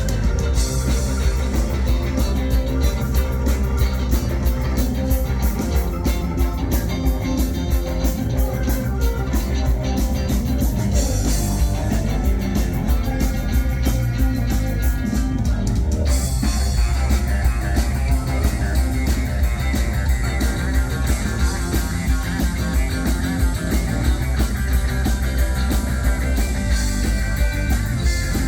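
Live band playing an instrumental passage: guitar over bass and drums with a steady beat, the cymbals growing brighter about halfway through.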